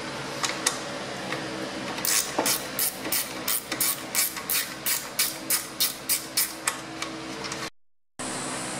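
Ratchet wrench clicking steadily, about four clicks a second for some five seconds, while loosening the nuts that hold the radiator fan shroud. A steady hum runs underneath, and the sound drops out briefly near the end.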